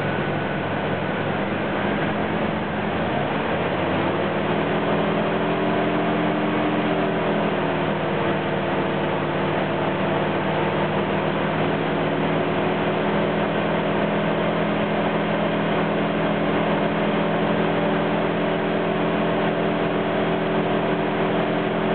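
Isuzu D-Max engine running at about 1,000 rpm, then speeding up between about two and four seconds in to a steady 2,000 rpm, its hum rising in pitch and then holding. The alternator is under a heavy load of over 80 amps.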